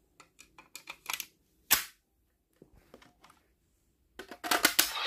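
Sharp plastic clicks from a toy transformation device being handled, with a card and buttons snapping into place: a string of separate clicks, the loudest about two seconds in, then a quick run of clicks near the end.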